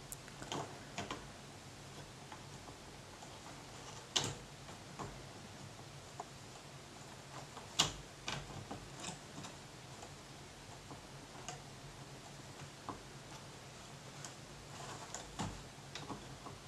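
Irregular small clicks and taps of fingers handling and turning the shafts of a board of rotary potentiometers from a Tascam mixing console, two sharper clicks standing out about 4 and 8 seconds in. A faint steady low hum underneath.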